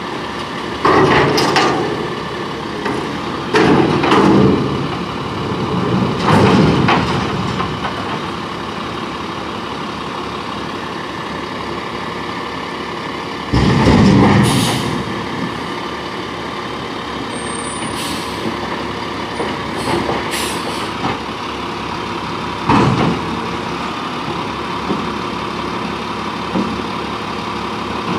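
1999 Crane Carrier garbage truck's diesel engine running steadily as the truck creeps forward. About five short, louder surges are heard, some with a sharp air hiss of the air brakes, the strongest about halfway through.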